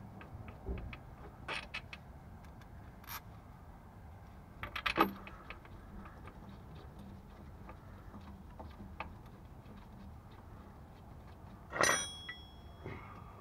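Metal hand tools and parts clinking and rattling: scattered light clicks, a clatter about five seconds in, and a louder metallic clank near the end that rings briefly.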